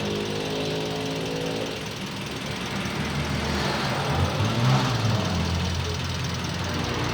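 Car engine running steadily, with a louder stretch about four to five seconds in.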